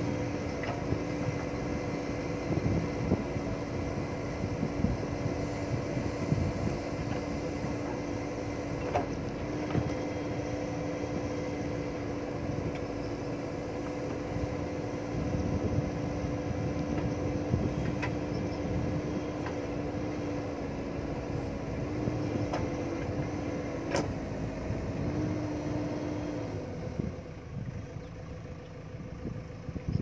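JCB backhoe loader's diesel engine running steadily while the backhoe arm digs, with a few sharp knocks along the way; the engine note eases off near the end.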